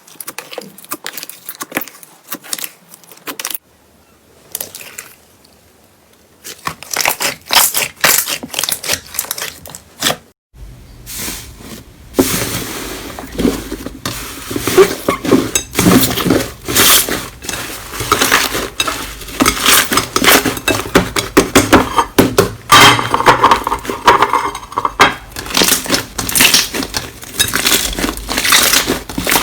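Slime being squeezed and pressed in the hands, giving dense crackling and popping clicks. It is quieter for the first several seconds, breaks off abruptly at about a third of the way, then comes back busier and louder.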